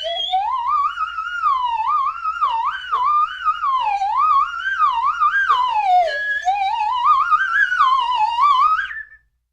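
Slide whistle played as a long, unbroken run of quick up-and-down glides, its pitch swooping and wobbling in a silly cartoon-style series. It ends on a rising slide and stops about nine seconds in.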